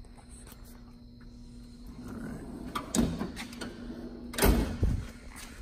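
Snap-on steel toolbox drawer being pushed shut along its slides. There is a knock about three seconds in, and it closes with a couple of heavy thuds about four and a half seconds in.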